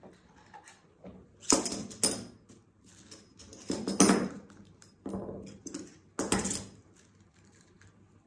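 Several short, sharp rustling clatters a second or two apart, the loudest about four seconds in: handling noise from pinning a paper sewing pattern to fabric.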